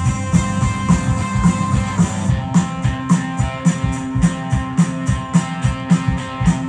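Live rock band playing an instrumental passage: guitars over a drum kit keeping a steady beat of about two strokes a second.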